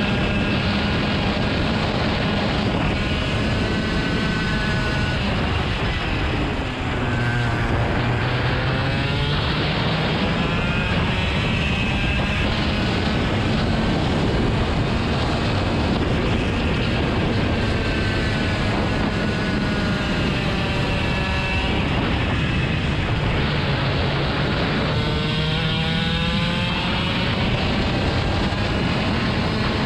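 Motor engine running steadily, its pitch sweeping up and down several times.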